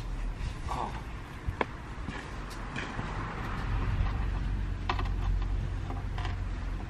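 A few light, sharp clicks and creaks, scattered through a few seconds, over a steady low rumble.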